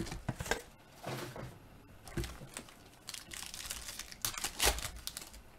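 Shiny plastic trading-card pack wrappers being handled and one torn open by hand: crinkling and tearing in irregular bursts, loudest near the end.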